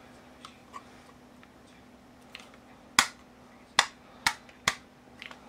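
A faint steady hum, then about three seconds in, four sharp clicks within two seconds as the pump pellet pistol is handled close to the microphone.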